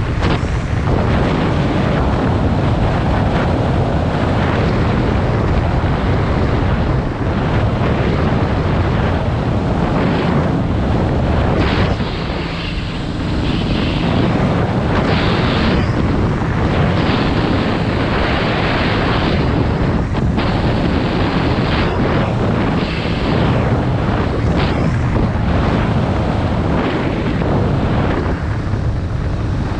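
Suzuki DR650 RSE's single-cylinder four-stroke engine running as the motorcycle rides along, heavily mixed with wind buffeting on the camera microphone. The sound drops briefly about twelve seconds in.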